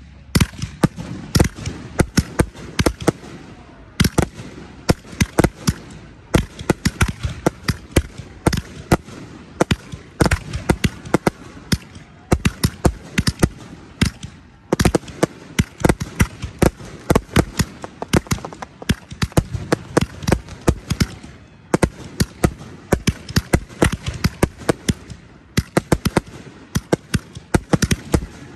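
Aerial fireworks firing in rapid succession: launch thumps and bursting shells, several sharp bangs a second with only brief lulls.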